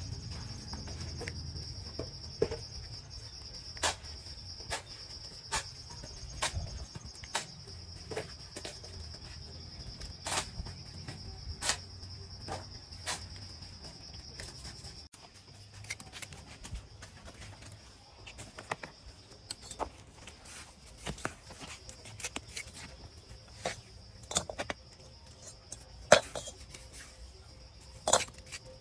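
Steel bricklaying trowel clinking and scraping as it scoops mortar from a bucket and taps bricks into place, with sharp clinks about every second. Under it, a steady high insect buzz.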